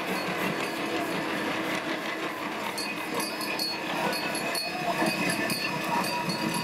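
Ride-on miniature railway train rolling past on its track, its wheels running steadily over the rails, against a background murmur of a crowd.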